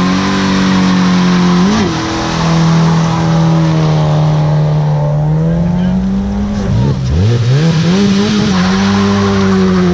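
Peugeot 106 hatchback pulling away with its engine held at steady high revs while its front tyres spin and squeal. About seven seconds in, a second hatchback, a Renault Clio, revs sharply up and holds its engine high as well.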